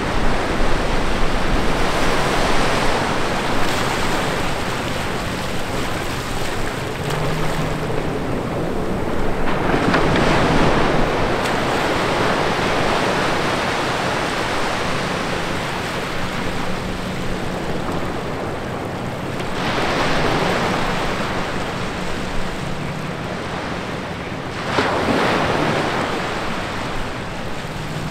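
Small ocean waves breaking and washing up over wet sand between rocks: a steady rush of surf that swells louder several times as each wave comes in.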